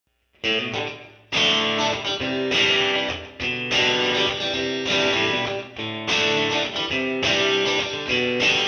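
Instrumental background music on guitar: strummed chords in a steady rhythm, starting about half a second in.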